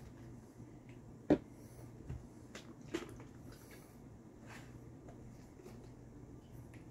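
A few short clicks and knocks of a small bottle and a cream carton being handled and opened on a kitchen counter, the sharpest about a second in, over a faint steady hum.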